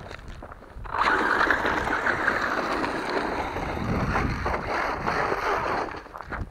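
A 1/8-scale electric RC buggy runs over loose gravel for about five seconds, its tyres crunching and throwing stones, with a faint high motor whine. The sound starts suddenly about a second in and cuts off near the end.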